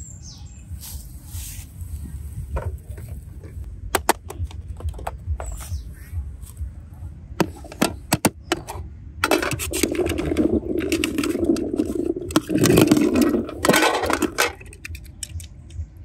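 Hands handling Orbeez water beads and a clear plastic case in a plastic tub: scattered sharp clicks of beads and plastic, then from about nine seconds in a dense scraping and squishing lasting about five seconds.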